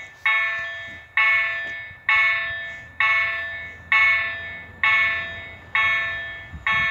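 Level-crossing warning bell striking steadily about once a second, each ringing stroke fading before the next, warning that a train is approaching. A low rumble of the approaching train grows near the end.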